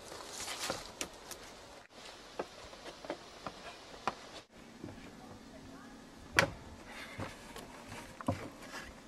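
Scattered knocks and creaks of someone climbing onto a wooden treehouse platform and handling gear on the boards, with a rustle near the start and one sharp, louder knock past the middle.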